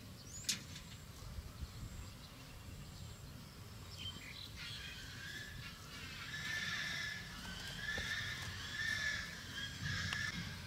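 A dog whining in a series of high, wavering cries that start about halfway through and keep going, over a low wind-like rumble.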